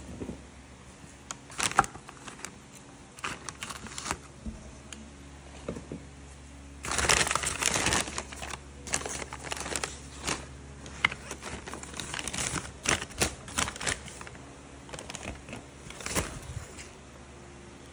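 Kraft paper wrapping crinkling and rustling in irregular bursts as it is pulled back from canvas panels packed in a cardboard box, loudest about seven to eight seconds in.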